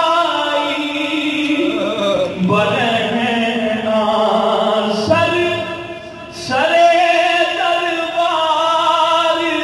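A man singing an Urdu manqabat, a devotional poem, solo into a microphone. He holds long, ornamented notes, with a short pause for breath about six seconds in.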